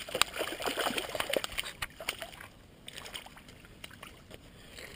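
Hooked ribbonfish thrashing at the surface of shallow water, a quick flurry of splashes over the first couple of seconds that thins to a few scattered small splashes.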